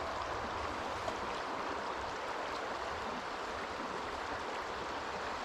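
Mountain river water rushing steadily over its bed.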